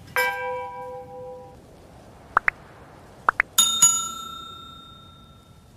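A brass temple bell struck once, its tones ringing and fading over about a second and a half. Then two pairs of quick rising blips and a bright electronic notification ding that rings out for about two seconds, from a subscribe-button animation.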